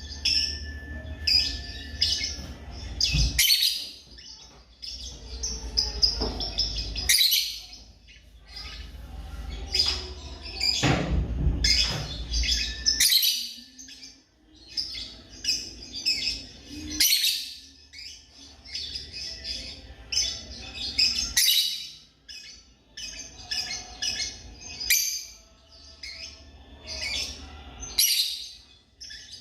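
African lovebirds chirping, a flock's shrill high calls coming in rapid, repeated bursts throughout. A low rumble sits underneath during the first few seconds and again around the middle.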